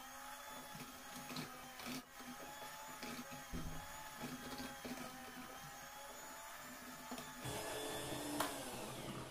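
Electric hand mixer running, its beaters whisking egg yolks with sugar and salt in a bowl; a steady motor whine that turns louder and rougher near the end.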